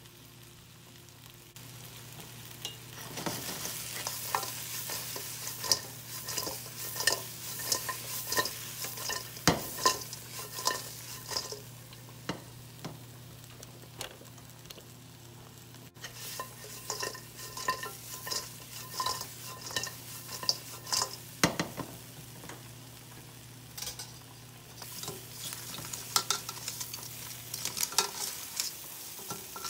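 Fried chicken wings and sautéed onion and peppers being stirred and tossed in a stainless steel wok over a light sizzle, with frequent clicks and scrapes of a utensil against the metal pan.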